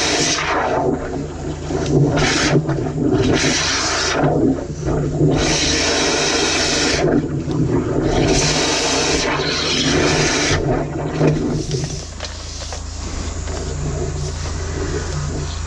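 A drain jetter's engine runs with a steady hum under repeated loud rushes of water hissing and gushing, each lasting from half a second to about two seconds. After about twelve seconds the rushes stop and only the engine hum and a lighter water sound remain.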